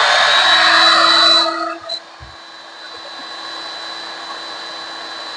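Electric heat gun running, blowing hot air onto a grey PVC fitting to soften it. It is loud at first, then drops about a second and a half in to a steadier, quieter whir with a thin high whine.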